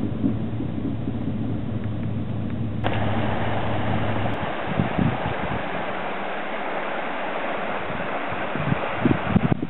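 Pickup truck engine and road noise heard from inside the cab while driving, then, about three seconds in, a sudden change to a steady rush of floodwater flowing over the road, with wind buffeting the microphone near the end.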